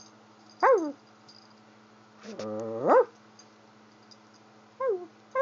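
Black Maltese puppy at play with a red plastic bone toy in her mouth: a few short, high squeaks that each slide down in pitch, and one longer squeal about halfway through that rises in pitch, then breaks off.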